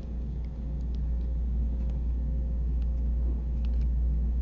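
Steady low background hum, with a few faint light clicks as resistor leads and wire are handled and twisted together.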